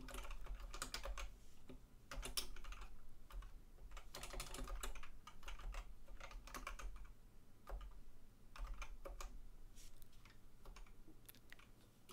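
Typing on a computer keyboard: short runs of keystrokes with brief pauses between them.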